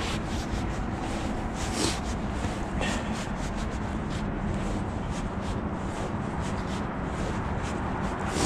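Rustling, shuffling and light clicks from a climber's clothing and shoes moving on a steel tower-crane jib, over a steady low rumble of wind on the microphone.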